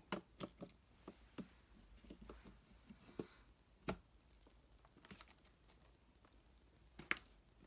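Faint, scattered clicks and taps of hands handling computer parts and the motherboard, with a sharper click a little before four seconds in and the loudest click near the end.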